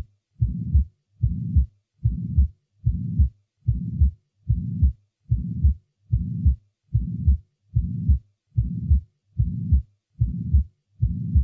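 Heart sounds through a stethoscope with a pansystolic (holosystolic) murmur, about 75 beats a minute. On each beat an even, unchanging murmur fills the whole gap from the first heart sound to the second, and diastole is silent. The murmur comes from blood leaking backward through the heart during systole.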